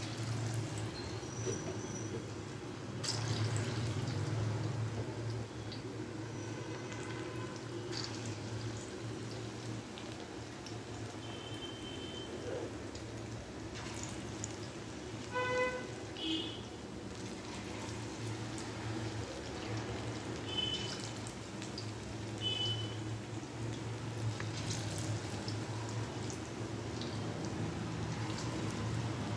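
Palm-fruit batter fritters deep-frying in hot oil in a metal wok, a steady sizzle, with a low steady hum beneath.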